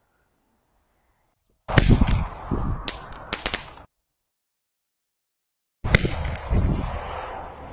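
Two firings of homemade star mines, with a silent gap between them. Each begins with a sudden bang as the gunpowder lift charge blows the stars out of the paper tube, followed by about two seconds of noisy rush with a few sharp cracks as the stars burn.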